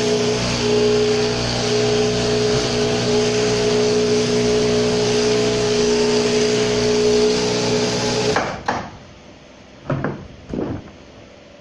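Electric sheep-shearing handpiece running with a steady buzzing hum as it crutches wool from a lamb, cutting off suddenly about eight seconds in. A few short knocks and thuds on the wooden shed floor follow.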